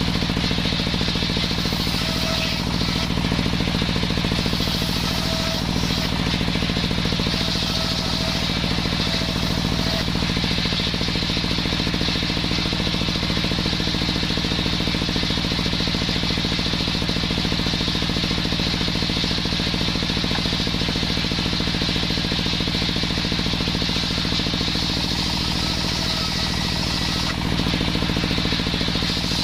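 The small engine of a homemade circular saw rig runs steadily, with a high whine alongside it. Its pitch and level hardly change.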